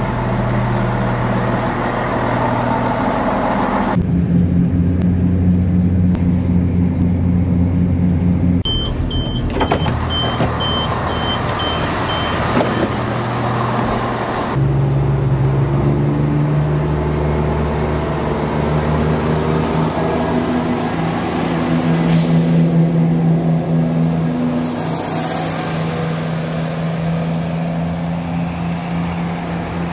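Class 170 Turbostar diesel multiple unit's underfloor diesel engines running steadily at a station platform, heard across several clips. A run of evenly spaced high beeps sounds partway through.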